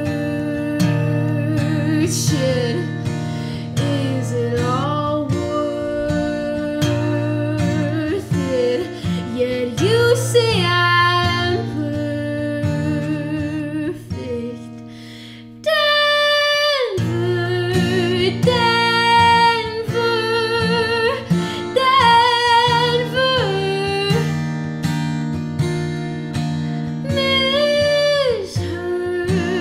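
A woman singing with vibrato over an acoustic guitar, a solo live acoustic performance. About halfway through, voice and guitar drop to a brief lull, then come back in together at full level.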